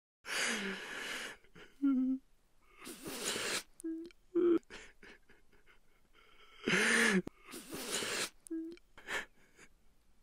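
Wordless voice sounds: three long breathy gasps or sighs, with short hummed or grunted tones between them.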